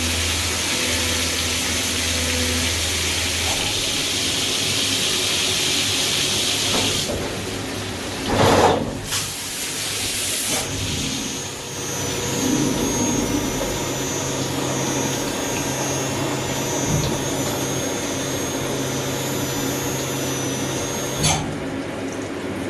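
CNC milling machine running, its spindle cutting pockets into soft vise jaws: a steady hiss with thin high whining tones. There is a brief louder swell about eight seconds in, and the sound changes abruptly a few times.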